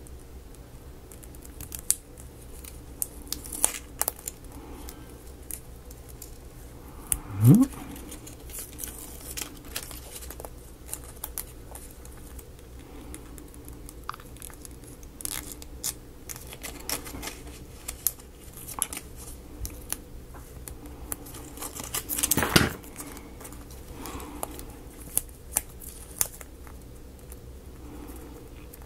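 Small paper pages of a miniature book being folded, creased and handled at close range: scattered light clicks, taps and crinkles. A brief rising squeak comes about seven seconds in, and a louder rustle about twenty-two seconds in.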